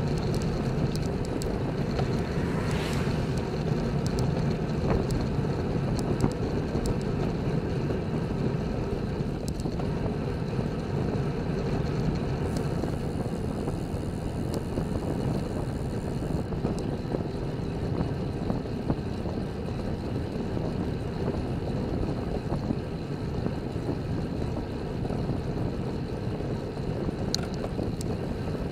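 Steady wind rush over a bike-mounted camera's microphone while cycling at about 30 km/h, mixed with tyre and road noise, with a few faint ticks and a brief swell about three seconds in.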